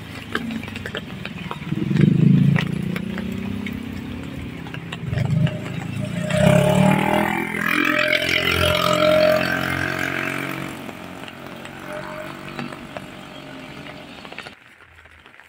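Small motorcycles riding past on a wet road, one after another. Their engine note rises and falls as each one passes, loudest about six to ten seconds in, then fading away.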